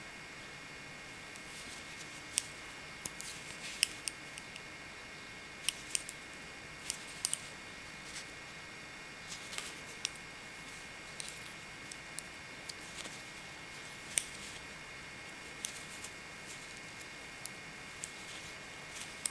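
Metal knitting needles clicking against each other as stitches are worked, short irregular clicks one or two a second over a steady hiss.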